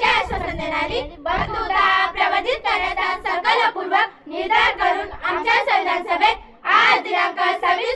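A group of schoolchildren reciting the Preamble of the Indian Constitution together in Marathi, with short pauses between phrases.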